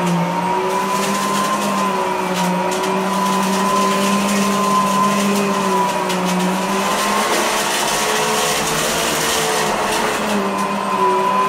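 Riccar Radiance R40 two-motor upright vacuum running, its suction motor and brush-roll motor making a steady hum and whine over a rush of air. The pitch wavers slightly as the machine is pushed across carpet and bare floor.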